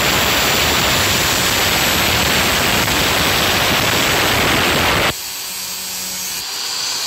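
Aluminium body of a PWK 28 motorcycle carburettor being ground against a spinning grinder wheel: a loud, harsh grinding hiss that stops suddenly about five seconds in, leaving the grinder motor running on.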